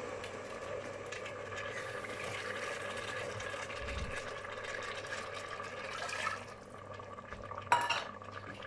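A hot stainless steel pot of fried chickpeas and spices hissing and bubbling as freshly added water heats in it. The hiss fades about six seconds in, and a short metallic clank comes near the end.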